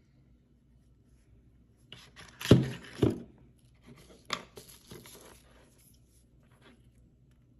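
Skincare packaging being handled on a table: a jar, cardboard boxes and a tube picked up and put down. Two solid knocks come about two and a half and three seconds in, followed by a few lighter clicks and rustles.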